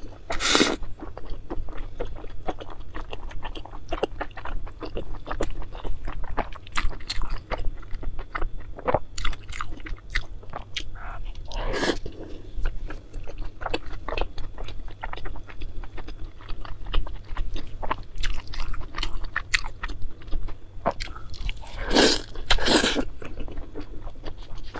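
Close-miked wet chewing and mouth sounds of someone eating saucy food, dense small clicks throughout, with a few louder slurps: one just after the start, one near the middle and two near the end.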